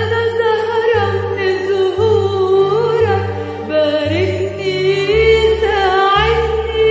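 Song with a woman singing long, wavering held notes that glide between pitches, over a low bass accompaniment that changes note about once a second.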